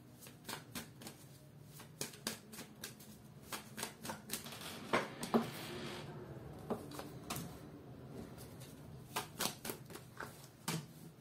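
A deck of tarot cards being shuffled by hand: quick, irregular clicks and slaps of cards against each other, with a short sliding rustle about halfway through.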